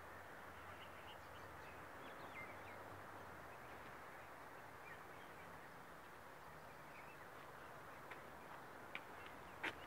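Faint outdoor ambience: a steady low hiss with scattered short, faint bird chirps, and a few sharp clicks near the end.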